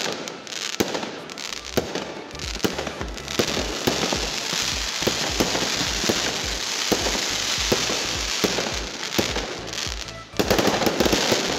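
Fireworks display: a rapid series of bangs over a dense crackling hiss that thickens from about four seconds in. The sound drops briefly near ten seconds, then a louder flurry of crackles and bangs follows.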